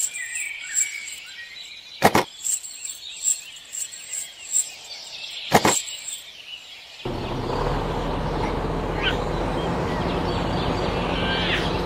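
Small metal chain clinking and clicking as it is hooked between a toy tractor and a tanker trailer, with two sharp clicks. About seven seconds in, a steady motor hum starts as the mini tractor pulls the tanker.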